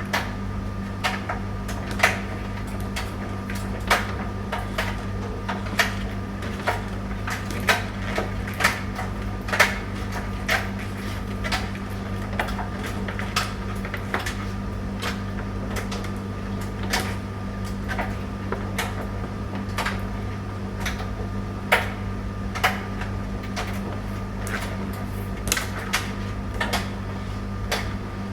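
Tumble dryer running: a steady motor hum with irregular clicks and knocks, about one or two a second, as the load tumbles in the drum.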